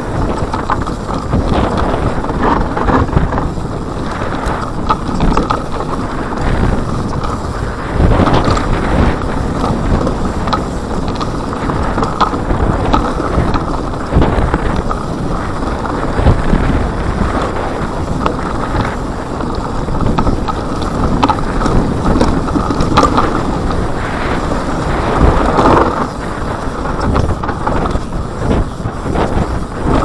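Wind buffeting an action camera's microphone while a Cube Stereo full-suspension mountain bike descends a dry dirt singletrack. Under it are tyre rumble and frequent short knocks and rattles from the bike over bumps.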